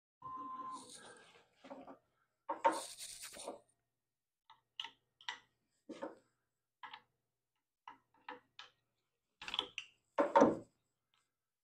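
A string of short metal clicks and clanks as spanner wrenches are fitted onto a CNC router spindle's collet nut and flats for a bit change. There is a louder clatter about two and a half seconds in and the loudest clanks near the end.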